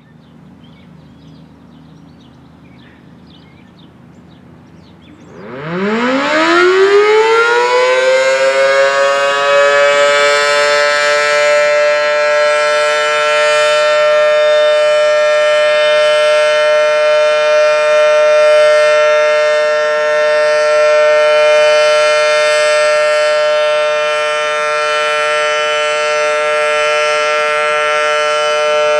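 Federal Signal Model 7T outdoor warning siren starting up about five seconds in, winding up quickly in pitch and settling into a loud, steady wail that holds. This is its routine test sounding.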